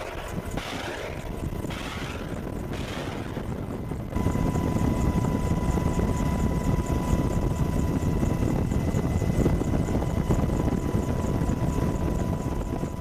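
AH-64 Apache attack helicopter running: steady rotor and turbine noise with a fast, even beat. About four seconds in the rumble gets louder and a steady high tone joins it.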